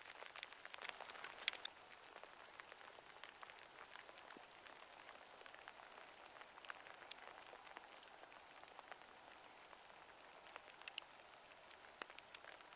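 Faint light rain: scattered drops ticking over a soft hiss, with one sharper tick about a second and a half in.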